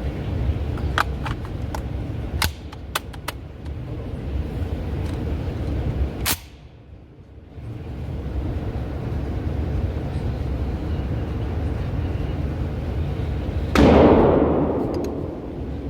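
Rock Island VR70 semi-automatic shotgun fired twice, about six seconds in and again near the end; the second shot is the louder, with a long decaying echo. A few light clicks come first, over a steady low rumble.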